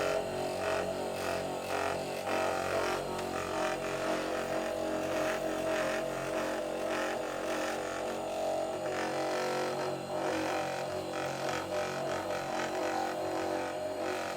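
Handheld battery-powered massager running with a steady hum as it is worked over the shoulders.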